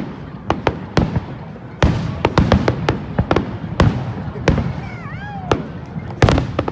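Fireworks display: a rapid, irregular series of bangs and pops, with a brief wavering whistle about five seconds in.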